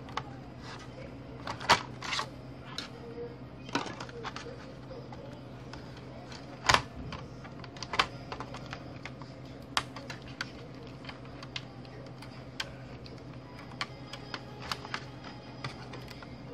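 Irregular small clicks and taps of hands working inside an opened Samsung Sens R522 laptop, unplugging cable connectors and handling the wires and chassis parts around the motherboard. Two sharper knocks stand out, about a second and a half in and near seven seconds, over a low steady hum.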